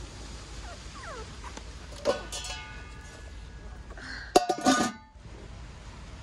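Enamel pot lid handled on a big enamel pot: a single ringing clink about two seconds in, then a louder metallic clatter and rattle as the lid is set down on the rim, ringing briefly.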